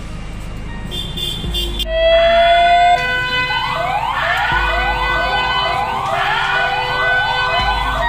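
Electronic siren sounding the hand-washing signal: a tone that starts about two seconds in and rises slowly, then switches to a fast repeating rising yelp, about two to three sweeps a second.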